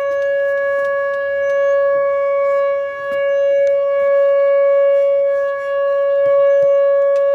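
Outdoor emergency warning siren sounding a loud, steady tone at one pitch, being tested, with two brief dips in loudness.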